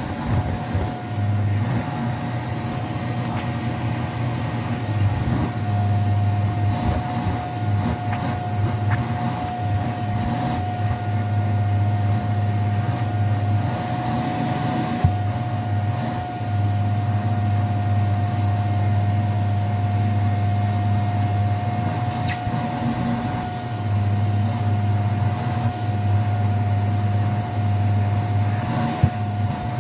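Vacuum cleaner running on shag carpet, a steady motor whine throughout. A low hum swells and drops every few seconds.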